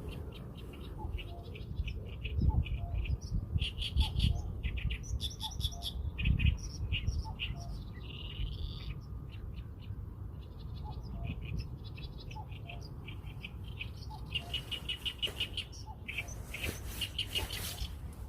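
Small birds chirping in quick series of short high notes throughout, with a fast trill in the last few seconds, over a steady low rumble.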